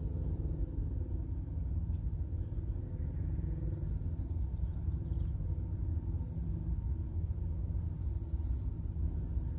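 Steady low rumble of a freight train's diesel locomotives and cars running along the track, even throughout.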